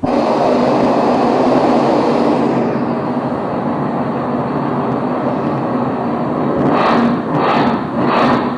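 Steady helicopter rotor and engine noise recorded from the cockpit in low, fast flight, heard from a film played over a hall's loudspeakers. From about seven seconds in, a regular pulsing about one and a half times a second joins it.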